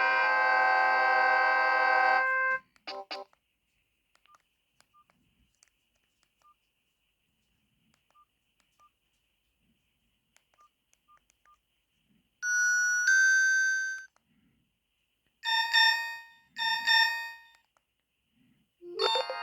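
Philips Xenium E207 mobile phone ringtones through the phone's small speaker: a polyphonic ringtone melody ends about two seconds in, followed by two brief beeps, then quiet with faint clicks. About twelve seconds in a short tone plays, then two shorter tones a second apart, and a new ringtone starts with a rising sweep near the end.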